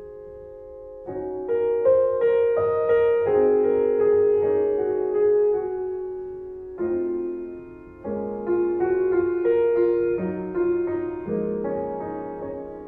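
Piano music: single notes and chords struck and left to ring and fade. It starts about a second in, after a short lull.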